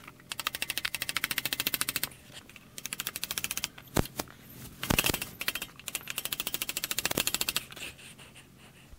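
Claw hammer tapping a wooden shim in under the sawmill track's end, raising it to level the track. Two runs of rapid light taps, about ten a second, with two heavier single blows about four and five seconds in.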